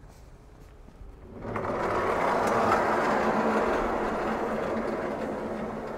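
Large wooden-clad sliding garage door rolling open along its track, a steady rolling rattle that starts about a second and a half in and fades out near the end.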